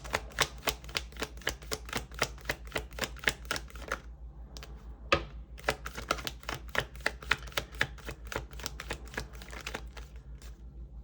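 Tarot deck being shuffled by hand: rapid runs of crisp card clicks, with a short pause about four seconds in before the shuffling picks up again.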